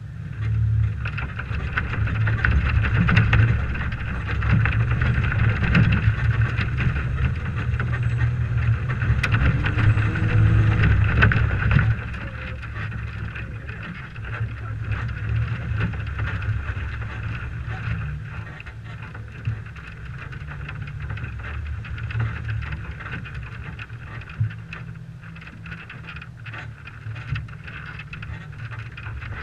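1998 Toyota 4Runner driving over a dirt motocross track: the engine runs under load with wind buffeting an exterior-mounted microphone. It is louder for about the first twelve seconds, then eases off.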